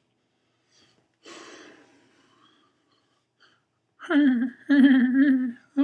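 A man's voice making drawn-out, wavering wordless sounds in two long stretches, starting about four seconds in, after a short breathy rush of noise about a second in.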